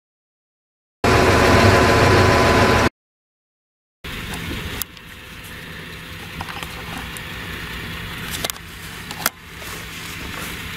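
A loud burst lasting about two seconds, then after a short gap the steady running of engines from a ROPA Maus 5 sugar beet cleaner-loader and lorries, with a few sharp knocks.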